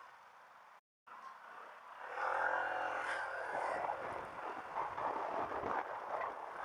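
Quiet at first, with a brief cut to total silence about a second in. Then, about two seconds in, a motorcycle engine picks up revs and runs on loudly under a rushing noise on the action-camera microphone.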